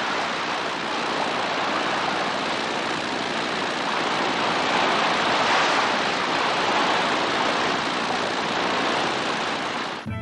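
Hovercraft speeding over water: a steady rushing of air and spray, swelling a little around the middle and cutting off abruptly near the end.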